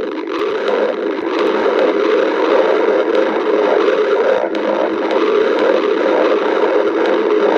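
A person's stomach growling from hunger: a continuous, steady growl with a few faint clicks.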